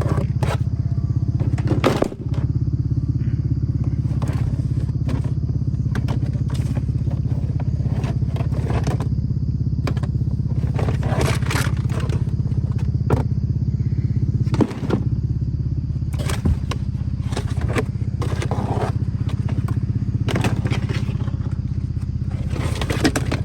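Infiniti G37's V6 engine idling steadily, with scattered clicks, knocks and clatter of plastic parts being handled.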